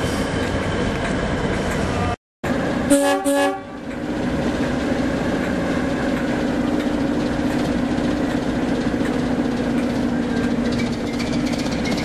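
Diesel locomotive sound, broken by a brief cut-out about two seconds in. Right after it comes a short two-part horn blast, then the Class 08 diesel shunter's English Electric six-cylinder engine running steadily as the locomotive moves off.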